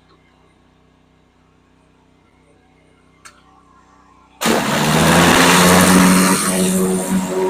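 A faint low hum with a single click about three seconds in. Then, about four and a half seconds in, a loud engine-driven machine suddenly starts, a steady hiss over an engine hum.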